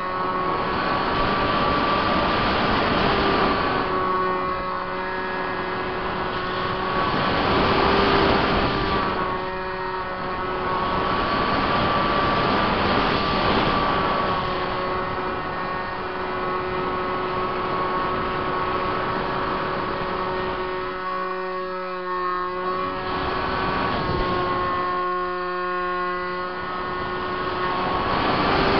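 Multiplex Easy Star RC plane's Permax 400 electric motor and propeller running steadily in flight, heard from a camera on the plane: a steady whine of several fixed tones. Rushing airflow noise swells and eases around it.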